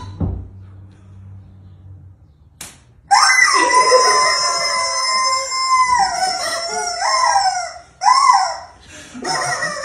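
Rubber-chicken squeak toys screaming. About three seconds in, one long, steady, high-pitched scream is held for about three seconds. Shorter wavering squawks follow, then two brief screams near the end.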